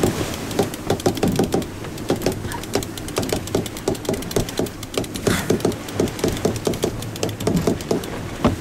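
Sailboat sheet winch being cranked with its handle, the pawls ratcheting in rapid, uneven clicks as the line is trimmed in, over a steady rush of wind and water.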